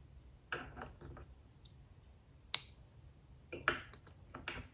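Hands handling crochet yarn and work on a tabletop make a few light clicks and rustles. The sharpest click comes about halfway through and a small cluster follows near the end.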